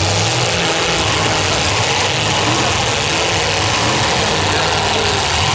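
Demolition derby car engines running loud and steady, several at once.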